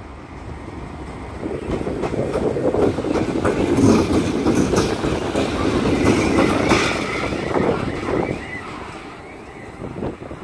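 GE C36-7i diesel-electric locomotive running light past at close range: its diesel engine running under power and its wheels clicking over the rail joints. The sound swells to its loudest about four to seven seconds in as the locomotive passes, then fades as it pulls away.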